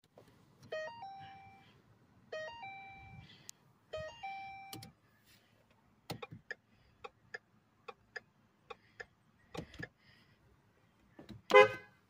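Three short electronic dashboard chimes of a few notes each from a Ford car, then a run of small plastic button clicks, and near the end one short blast of the Ford's car horn, which works.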